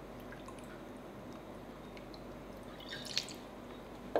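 Fish sauce poured from a bottle into a metal spoon and tipped into a stainless steel bowl: faint small drips, then a single sharp clink of the spoon against the bowl about three seconds in as stirring begins.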